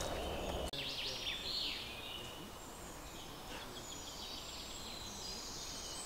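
Woodland birds singing: a few quick falling whistles about a second in, then high, thin chirps and trills. Before that, a low rustling noise of walking cuts off abruptly.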